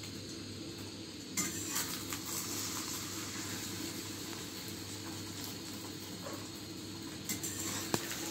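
Egg omelette sizzling as it fries in a small metal pan, louder from about a second and a half in, with the metal spatula clinking and scraping against the pan a few times.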